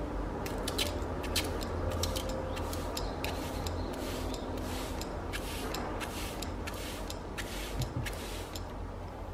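Hand trigger spray bottle misting water onto potting soil: a quick run of short hissing squirts, about two or three a second.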